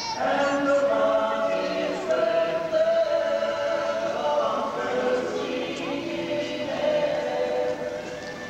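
A small vocal group singing together in harmony. The voices come in together right at the start and hold long notes.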